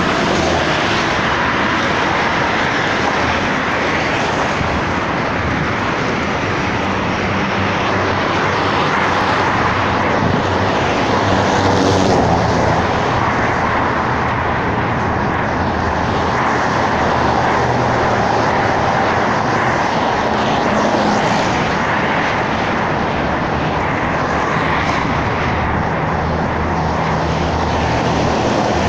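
Steady road traffic noise from cars and a bus passing on a multi-lane highway, with a low engine hum.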